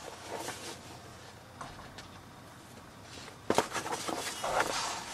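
Glossy booklet pages rustling and crackling as they are handled and a page is turned, with a sharp click and the loudest rustling in the last second and a half.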